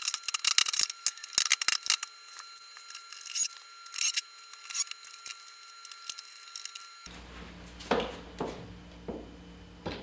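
Plastic door trim on a Tesla Model 3 being pressed and snapped back into place: a quick run of sharp clicks and scrapes for several seconds, then a few duller knocks.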